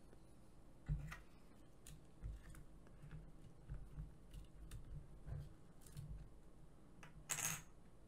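Light clicks, taps and dull bumps as fingers work a 2.5-inch laptop hard drive loose from the plastic chassis of an Nvidia Shield TV Pro, with a brief louder rustle a little after seven seconds in.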